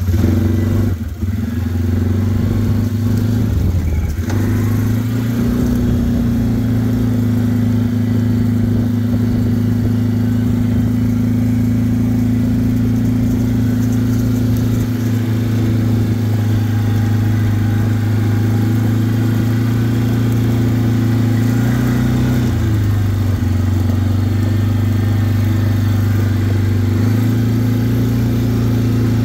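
An engine running steadily at low revs, a constant low hum that shifts briefly about four seconds in and again around 22 and 27 seconds.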